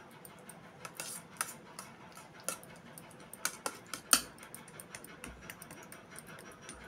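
Steel spoon pressing and smoothing soft barfi mixture in a steel plate, giving scattered light clicks and taps of spoon on metal. The loudest click comes about four seconds in.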